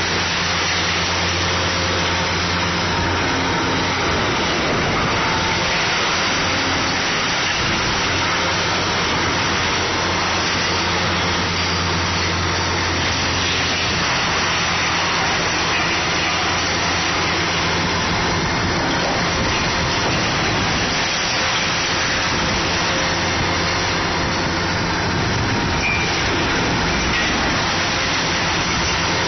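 Kobelco SK500 hydraulic excavator's diesel engine running under working load, its note strengthening and easing off several times as the hydraulics are worked, over a steady rushing noise.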